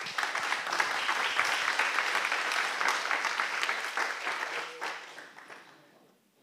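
Small audience applauding, the clapping tapering off and ending about six seconds in.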